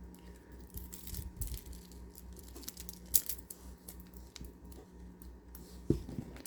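Handling noise of plastic bead bracelets: scattered light clicks and rustles as the beads are picked up and moved, with a sharper click about three seconds in and again near the end, over a faint steady hum.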